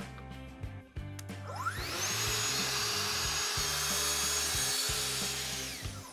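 Festool TSC 55 KEB cordless track saw spinning up with a rising whine about a second and a half in, then cutting steadily through a door panel along its guide rail, and winding down with a falling whine near the end.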